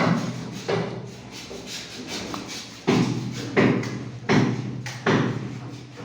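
A series of about six heavy knocks at uneven spacing, two close together at the start and four more in the second half. Each knock is followed by a short, low ringing.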